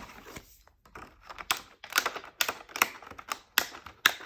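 Discbound planner pages being pressed onto metal discs: a quick run of sharp clicks and snaps, about two or three a second, starting about a second and a half in.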